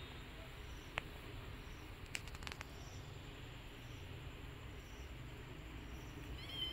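Faint insects chirping at night, a soft high pulse about once a second over a low steady hiss, with a few light clicks and a short high squeak near the end.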